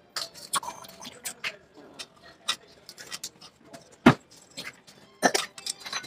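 Irregular clicks and knocks of kitchen utensils and dishes being handled, with one louder knock about four seconds in.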